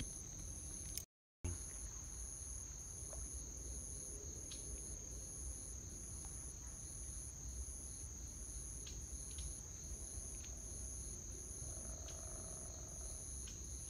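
Insects shrilling steadily in the pond-side vegetation: one continuous high trill, with a still higher chirp pulsing about one and a half times a second. Near the end a bird gives a single held note lasting a second or so. The sound cuts out for a moment about a second in.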